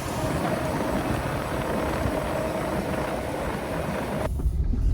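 Wind buffeting the microphone over a self-propelled sugar beet harvester running in the field. About four seconds in the sound cuts abruptly to a low vehicle rumble.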